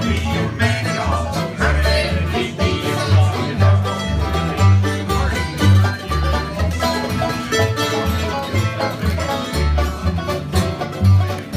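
An acoustic bluegrass band plays: banjo, mandolin, acoustic guitar and upright bass together. The bass plucks out about two notes a second under the banjo and mandolin picking.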